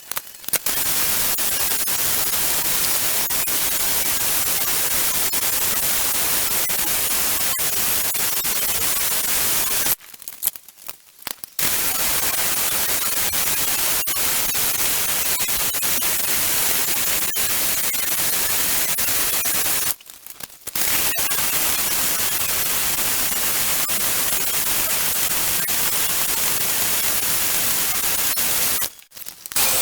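Steady, even hissing noise, with no pitch to it. It stops for about a second and a half around ten seconds in, briefly again around twenty seconds, and once more near the end.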